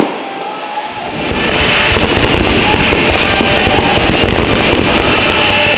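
Fireworks display: a sharp bang at the very start, then from about a second in a loud, dense, continuous crackle and rumble of many shells bursting together in a barrage, with music underneath.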